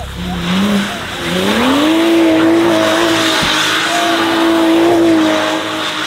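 BMW sedan spinning donuts on icy pavement: the engine revs up about a second in and is held high and steady while the rear tyres spin and hiss, then the revs drop near the end.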